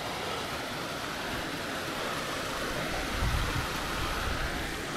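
Small rocky hill stream rushing over boulders, a steady hiss of white water, with a brief low rumble about three seconds in.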